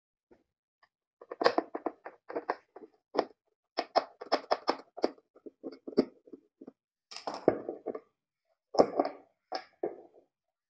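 Screwdriver working wood screws out of a plywood back panel: irregular runs of short clicks and scrapes, with a few louder knocks of the screwdriver and panel.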